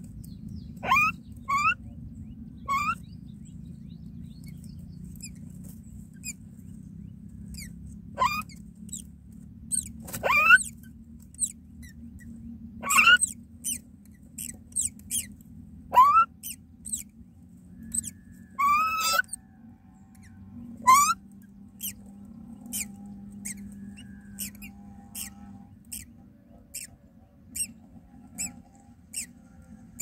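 Common myna nestlings begging while being fed: short, thin, rising squeaks, about ten of them, a second to a few seconds apart, over a low steady hum.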